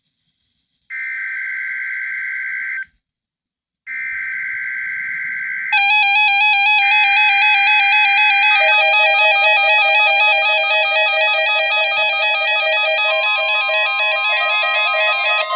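NOAA Weather Radio SAME data bursts, buzzy warbling digital tones, sound twice for about two seconds each, a second apart. At about six seconds several weather alert radio receivers set off their alarms together in a loud, steady cluster of pulsing electronic beeps and tones, while another burst sounds under them. A further steady tone joins near the end.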